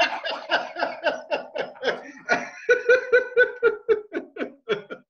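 Two men laughing hard together, a fast run of laughs that thins out and fades near the end.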